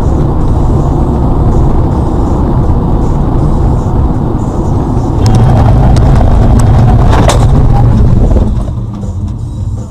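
Motor vehicle on the road with a loud, steady low rumble. About five seconds in it grows louder, with a run of sharp knocks and one strong bang about seven seconds in, then it falls away.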